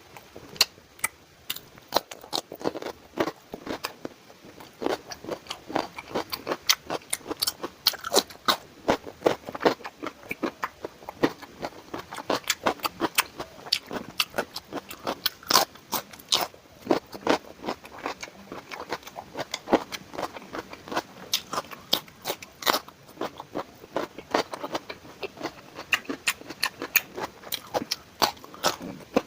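Close-miked chewing and mouth noises of a person eating: wet smacking and crunchy clicks, several a second, in an irregular run.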